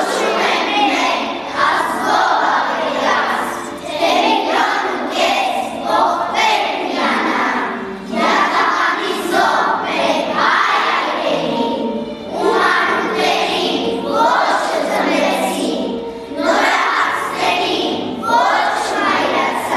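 A class of children's voices together in unison, going in phrases of about two seconds with short breaks between.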